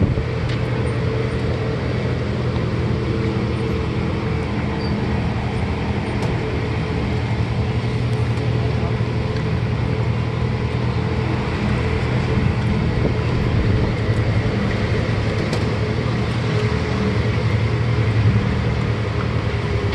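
Sightseeing tram driving steadily along a road: an even engine drone with road noise, heard from on board.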